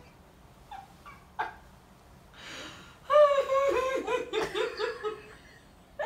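A child laughing: a run of about eight quick, high-pitched 'ha' pulses starting about three seconds in, sinking slightly in pitch. A soft click comes earlier.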